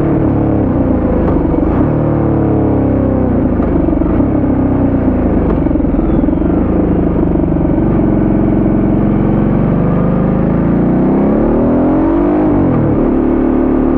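Ducati Multistrada 1200S's 90-degree V-twin engine running under way, heard from on the bike, its pitch falling and rising as the throttle is eased and opened through the bends. Near the end the revs climb, then drop sharply.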